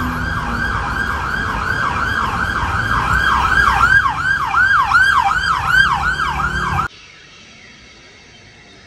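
A siren wailing in a fast, repeating up-and-down yelp, about three sweeps a second, growing a little louder, then cutting off abruptly near the end, with a low rumble beneath it.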